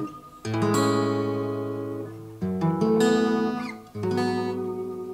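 Acoustic guitar strummed through a ToneWoodAmp set to its Leslie-style tremolo effect. Three chords are played, each left to ring and fade; the first comes about half a second in.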